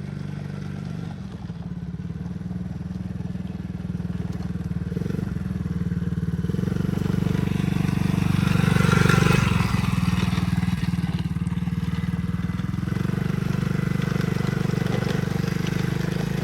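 Small single-cylinder four-stroke engine of a Tao 110cc ATV running while it is ridden, getting louder to a peak about nine seconds in, then a little quieter.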